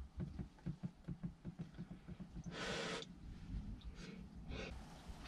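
Faint sounds of a person eating rice from a metal pot with chopsticks: soft repeated chewing and small knocks of the chopsticks, with one short breathy rush about halfway through.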